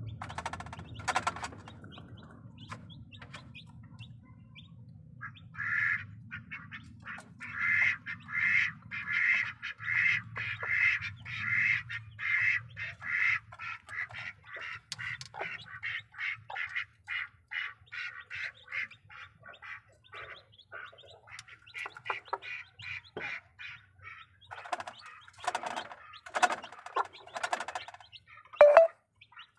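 Bangkok game chickens, a hen and her newly hatched chicks, giving short repeated calls: about two a second at first, then quicker and softer. A few knocks come near the end.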